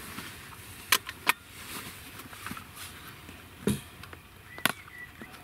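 A rifle and kit being handled and lifted out of a truck's back seat: a few sharp clicks and knocks, two about a second in and two more later, over a low steady background.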